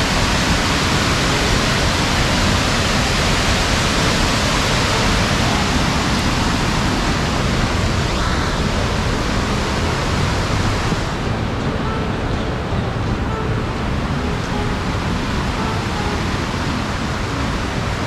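Steady, loud rushing roar of a waterfall pouring into a canyon. About 11 seconds in, the hiss loses its highest part and faint short tones come in underneath.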